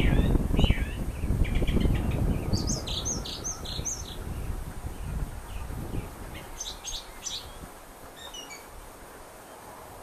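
Small songbirds chirping and singing in short high phrases, with a quick run of notes about three seconds in and another burst around seven seconds. A low rumble underneath is loudest at the start and fades away over the first half.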